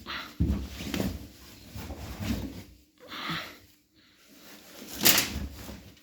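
Irregular handling noises at a front-loading washing machine: soft low thumps and rustling, with one short, sharp scrape about five seconds in.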